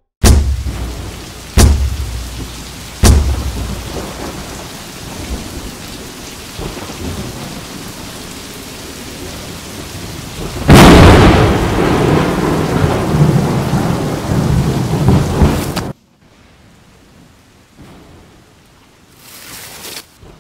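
Three heavy, echoing knocks about a second and a half apart, then steady rain with a long thunder rumble swelling in about ten seconds in. The storm sound cuts off suddenly a few seconds before the end, leaving a much quieter hush.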